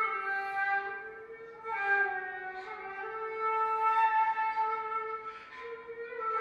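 Solo shakuhachi (Japanese end-blown bamboo flute) playing slow, long held notes that step down slightly in pitch, with breathy rushes of air as notes begin. It quietens about a second and a half in and again around five seconds, then swells near the end.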